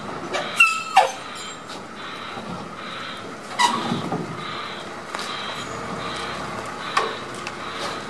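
Mobile crane's engine running steadily as it holds a lifted pandanus palm on its boom, with a few short squeals and clicks: a falling squeal about half a second in, another near four seconds, and a sharp tick near seven seconds.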